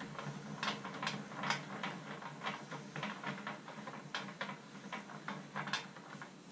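Irregular sharp clicks and light knocks, several a second, from hands working the plastic handles and wooden jaws of a Black & Decker Workmate 536 workbench.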